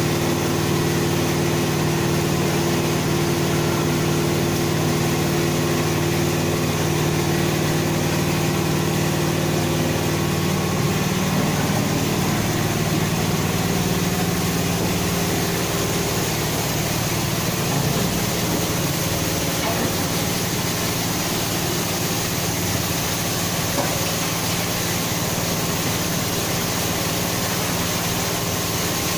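Steady hum of an electric water-pump motor, with a few steady tones; the mix of tones shifts about ten seconds in.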